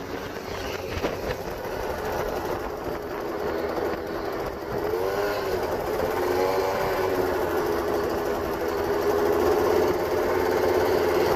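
Piaggio Zip SP H2O scooter's two-stroke engine, bored out to 172cc, revving high as the scooter is ridden on its back wheel. It gives a high, whining note that wavers in pitch about halfway through, then holds steady and gets louder as the scooter comes closer.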